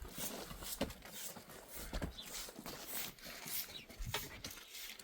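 Farm animals moving about, with a few short calls amid scattered knocks and rustling.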